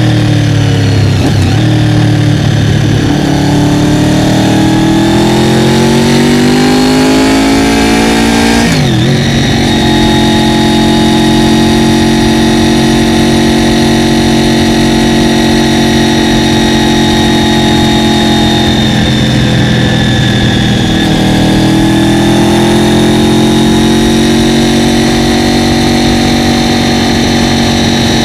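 Fifth-generation Honda VFR800FI's V4 engine under way: the revs climb for several seconds, drop sharply on a gear change about nine seconds in, and hold steady. Around twenty seconds in the revs dip briefly, then climb again and settle into a steady cruise.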